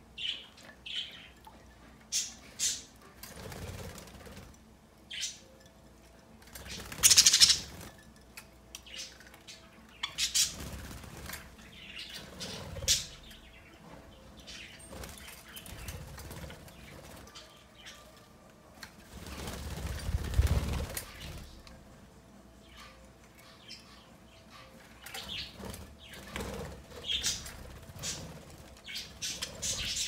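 Budgerigars bathing in a hand-held bowl of water: irregular bursts of wing flapping and fluttering, loudest about a quarter of the way in and again around two-thirds through, with short chirps in between.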